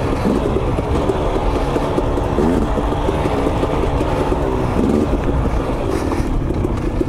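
2022 KTM 250 XC two-stroke dirt bike engine being ridden, its revs rising and falling again and again as the throttle is worked.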